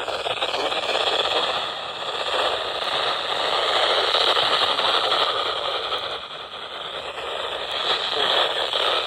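Radio static: a steady, narrow-band hiss from a weak radio reception with no voice on the channel, swelling and fading a little, with a dip around six seconds in.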